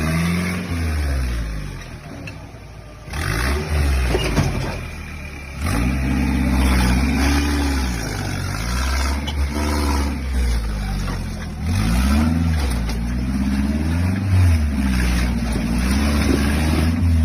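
Off-road jeep engine revving up and down over and over as it crawls over rocks, the throttle opened and eased in short swells.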